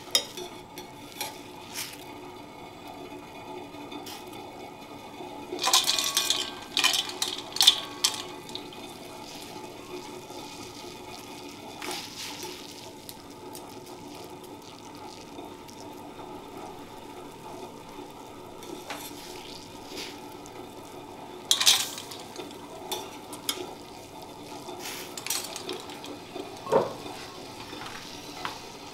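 Water at a rolling boil bubbling steadily in a stainless steel saucepan, with long metal chopsticks clinking and scraping against the pan as pieces of mirugai clam are blanched. The clatter is busiest about six to eight seconds in and again briefly past twenty seconds.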